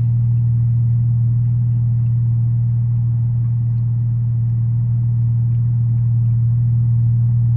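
Car engine idling, a steady low hum heard inside the cabin.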